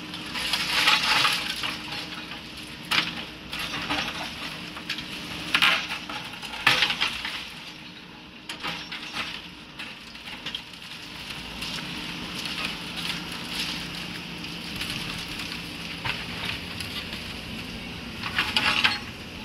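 JCB 3DX backhoe loader's diesel engine running steadily while its bucket breaks and drags concrete and brick rubble, giving irregular bursts of crunching and clattering debris. The crashes come loudest in the first seven seconds and again near the end, with a stretch of mostly engine hum between.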